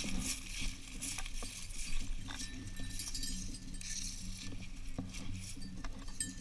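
Footsteps brushing and crackling through dry, matted grass and stubble, with irregular crackles.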